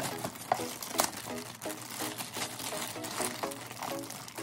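Thin plastic shrink wrap crinkling and crackling in sharp bursts as it is pulled off a cardboard toy box, over a background music track of short, evenly repeating notes.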